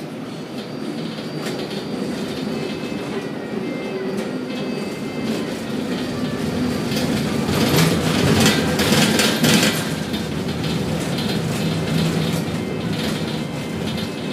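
Container gantry crane machinery running with a continuous rumble and clatter, swelling into a louder stretch of clanking for about two seconds in the middle.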